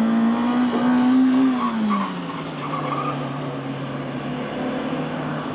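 A gymkhana hatchback's engine running hard, revs climbing slightly and then falling about two seconds in as it slows for a turn, with brief tyre squeal. The engine then holds a lower, steady note.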